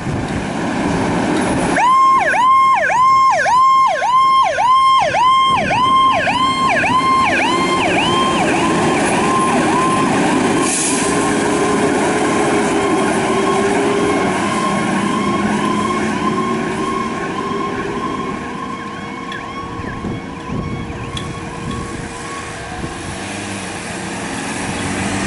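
Fire engine's electronic siren in a fast yelp, its pitch swooping down and back up about twice a second. It comes on about two seconds in and fades steadily as the Pierce Enforcer pumper pulls away. The truck's engine rumbles under it as it accelerates.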